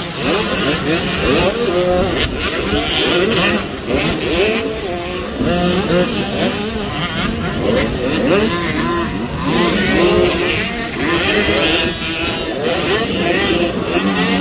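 Small two-stroke motocross bike engines, a KTM 85 among them, revving up and down again and again, their pitch rising and falling with each burst of throttle.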